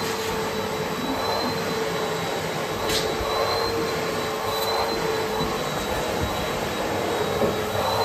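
Bosch canister vacuum cleaner running steadily, its hose end sucking at fluffy faux-fur slippers: a rush of air with a steady motor whine over it.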